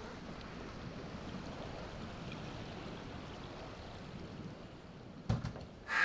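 Steady wash of small waves lapping on a lake shore. A single thump near the end.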